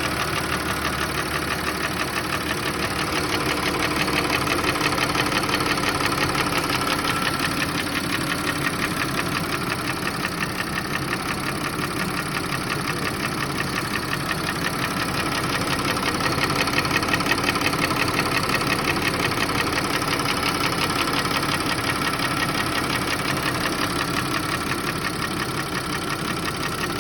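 Audi 2.8 FSI V6 idling with a steady, rapid knock from inside the engine. The knock is there cold and hot at low revs and goes away when the revs are raised slightly; its cause is unknown to the owner.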